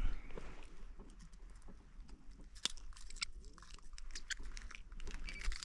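Irregular small clicks and taps from handling fishing tackle in a boat, the sharpest about two and a half seconds in, over a steady low rumble.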